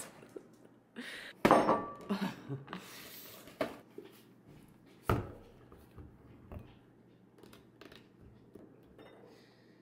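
Breakfast being put together: a scattering of knocks and clinks as a plastic protein-powder tub and other containers are picked up and set down around a ceramic bowl on a wooden tabletop. The loudest knock comes about a second and a half in, with fainter taps following.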